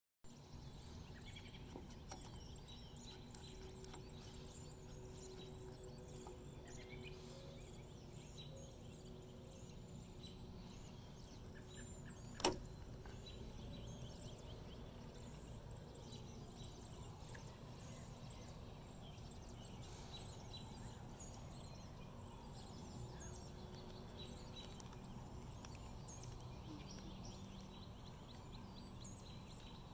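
Faint outdoor background noise, broken about twelve seconds in by a single sharp click as a finger flicks a 3D-printed fidget spinner into a spin.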